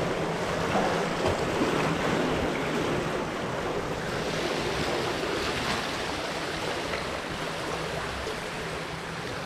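Water splashing and sloshing as a swimmer swims backstroke into the pool wall and pushes off it in a backstroke-to-breaststroke turn. It is a steady wash of water noise that eases slightly toward the end.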